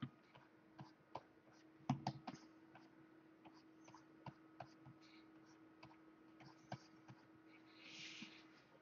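Faint, irregular clicks and taps of a computer keyboard during digital painting, loudest in a short cluster about two seconds in, with a brief soft rustle near the end and a quiet steady hum underneath.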